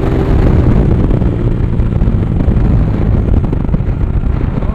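Motorcycle engine running at steady road speed, with heavy wind rumble on the bike-mounted microphone.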